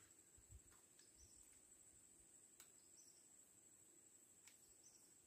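Near silence: faint swamp ambience with a steady high tone, three short soft chirps, and a few faint ticks.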